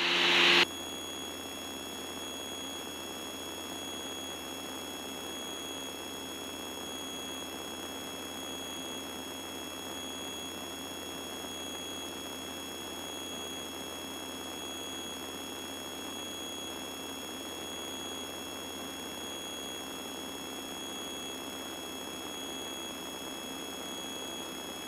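Piper Seminole cockpit sound during a slow pitch-up: a muffled, steady engine drone under several thin steady whining tones and a faint beep that pulses on and off. A louder sound cuts down abruptly just after the start, and after that the sound stays level.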